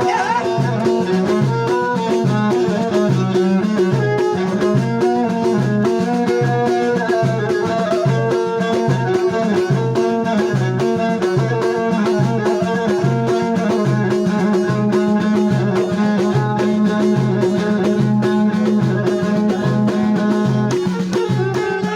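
Instrumental passage of an Amazigh folk song: a steady drum beat about twice a second under a melody line, with no singing.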